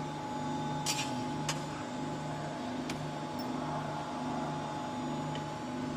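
Hydraulic guillotine shear standing idle with its oil pump motor running: a steady low machine hum that pulses evenly, with a thin steady tone over it and a few faint clicks.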